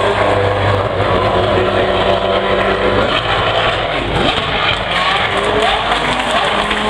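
Race car engine running hard past the spectators, a steady note for about three seconds that then breaks up and falls away. Near the end, revs rise and fall as engines run further off.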